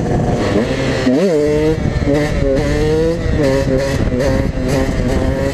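KTM EXC 125 two-stroke dirtbike engine revving under way. About a second in the pitch shoots up and drops sharply, then rises and falls repeatedly with the throttle.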